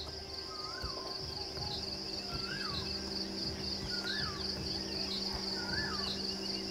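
Forest ambience: a steady, high, pulsing chorus of insects, with a bird repeating a short whistled call that rises and then falls, four times about every second and a half. Faint short chirps from another bird come in between.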